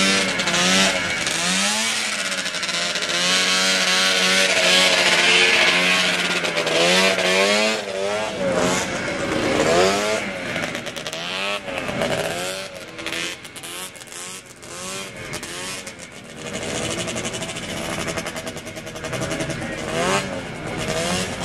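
Vintage snowmobile engines running and being revved, the pitch rising and falling repeatedly, with a quieter stretch about two-thirds of the way through.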